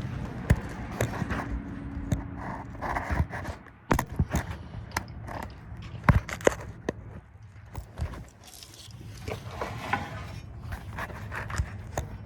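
Heavy metal parking-lot light fixtures being moved by hand: scattered clanks, knocks and scrapes of metal, with a steady low hum underneath.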